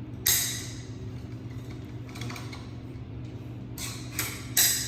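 Two sharp clacks of hard objects knocking, one shortly after the start and one near the end with a lighter click just before it, over a steady low hum.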